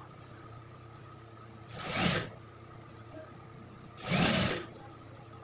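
Industrial sewing machine stitching in two short runs, each speeding up and slowing down within about half a second, about two seconds apart. A steady motor hum continues between them while a sleeve is sewn into a gown.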